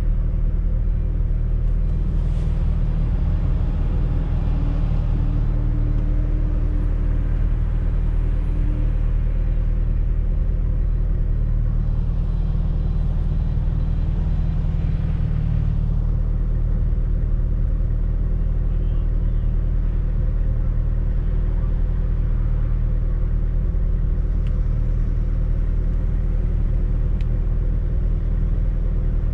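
Fiat Coupe 2.0 16V Turbo's four-cylinder turbocharged engine running steadily while driving, with a low drone and road noise.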